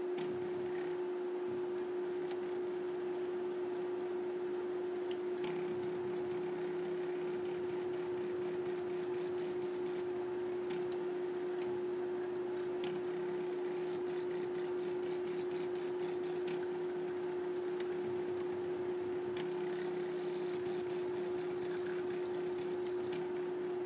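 Small stepper motors of a homemade mini CNC machine humming with a steady whine as they step the pen in small increments, with a few faint ticks.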